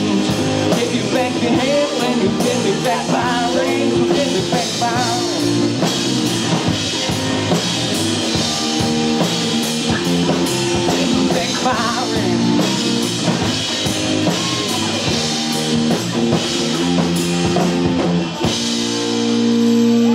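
Live rock band playing: electric guitar, bass guitar and drum kit, with a singer's voice over them. The band holds a sustained chord near the end.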